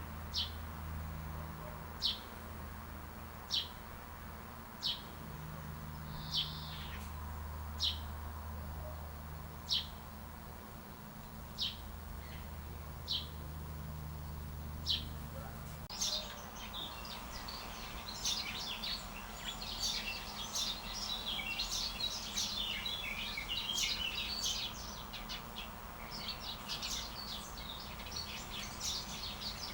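A bird repeats one short, high chirp about every second and a half; about 16 seconds in this changes abruptly to many birds chirping and twittering at once in a busy chorus.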